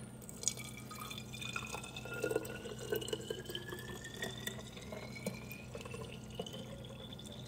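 Kombucha poured from a glass pitcher into a small glass bottle: a steady trickle whose pitch rises slowly as the bottle fills.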